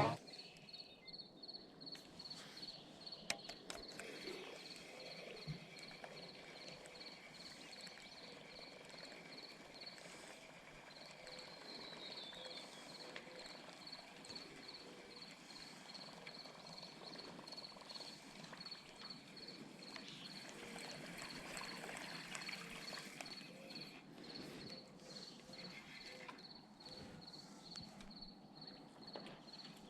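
Faint outdoor ambience of an insect chirping at a steady rate of about two or three high chirps a second, with a couple of soft clicks about three and five seconds in.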